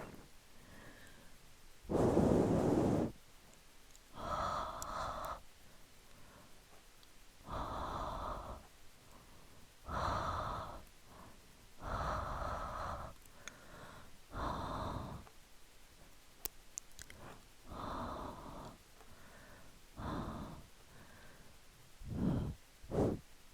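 Close-miked ASMR breathing: a person's slow, audible breaths, about one every two seconds, the loudest about two seconds in. Near the end the breaths come shorter and quicker.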